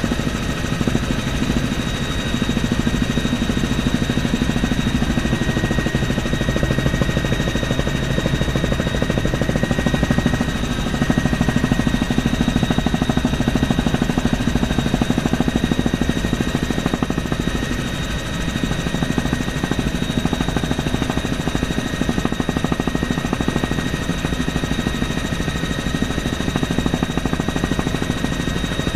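Bell helicopter in cruise flight, heard from inside the cabin: steady engine and rotor noise with a fast pulsing beat and a steady high whine.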